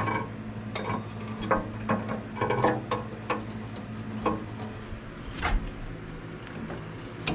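A V-belt being forced by hand onto the table saw's motor and arbor pulleys: irregular metallic clanks and knocks, some ringing briefly, about a dozen over the few seconds.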